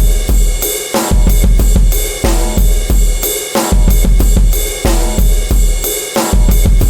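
Drum kit playing a steady, loud beat with very deep bass drum and cymbals, a drum-and-bass test track for audio playback.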